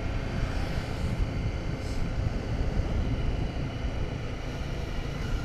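Honda CRF250 Rally motorcycle riding along a road at steady speed: the single-cylinder engine's running mixed with a steady rush of wind noise.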